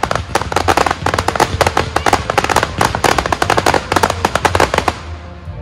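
Aerial fireworks display: a dense, rapid run of crackling pops from glittering shells bursting overhead, thinning out and fading near the end.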